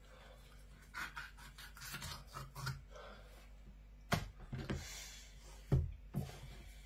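A knife cutting through a dogfish's rough, sandpaper-like skin on a wooden chopping board in a run of short scratchy strokes. These are followed, around the middle, by a few dull knocks as the fish is handled on the board.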